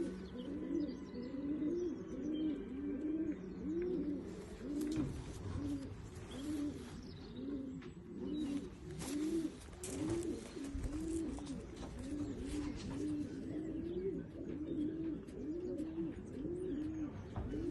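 Racing pigeons cooing: a steady run of low, arching coos, about one and a half a second, with a few faint clicks among them.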